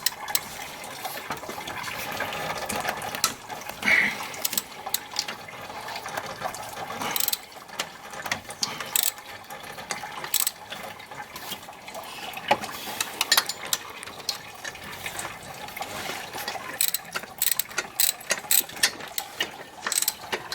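Hand socket ratchet wrench clicking as bolts are backed out, in short runs of quick clicks with pauses between, densest near the end.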